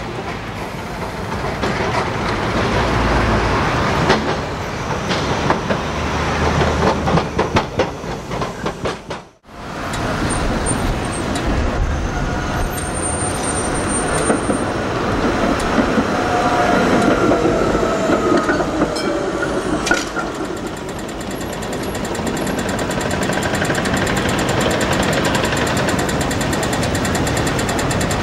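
Trams and road traffic on a city street. There is a run of clicks and rattles at first, a brief dropout about nine seconds in, then a steady rumble of passing vehicles with a faint tram whine.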